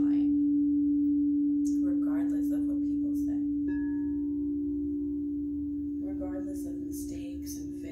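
Quartz crystal singing bowls ringing: one bowl's steady low hum slowly fades. About four seconds in, a second, slightly higher bowl tone joins.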